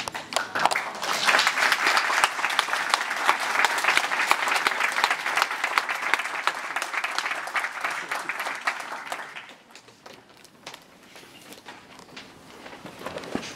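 Audience applauding: dense clapping that dies away about nine or ten seconds in, leaving a few scattered claps.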